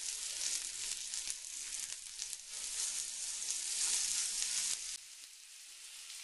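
Minced-lamb kebabs sizzling and spitting on a hot oiled griddle pan, a dense hiss with fine crackles. About five seconds in, the sizzle drops to a much quieter hiss.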